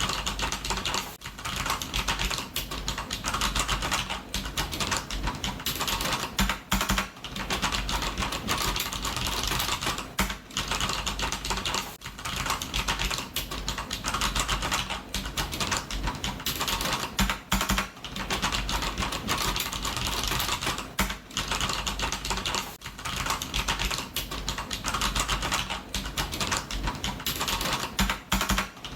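Computer keyboard being typed on fast and continuously, a dense patter of key clicks broken by short pauses every second or two.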